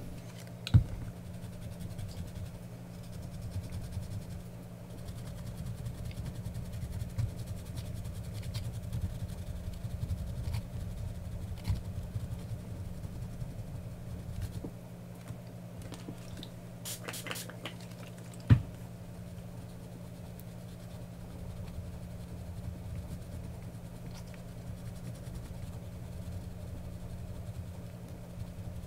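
Faint rubbing and scrubbing on the plastic shrink-wrap of an 18650 lithium battery pack, done by hand with alcohol to lift glue residue, over a steady low hum. Two sharp clicks stand out, one near the start and a louder one about two-thirds of the way through.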